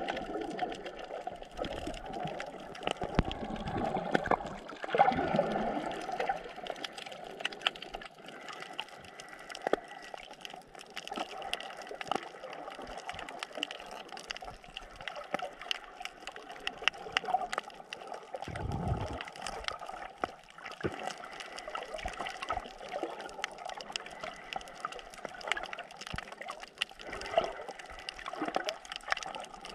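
Underwater sound of a coral reef recorded while snorkeling: a steady muffled wash of moving water, sprinkled with many small clicks and crackles, with a brief low rumble of water movement about nineteen seconds in.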